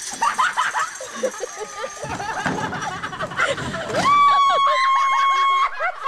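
Excited voices and splashing water around a wooden raft, then one long, high, steady scream starting about four seconds in and lasting over a second.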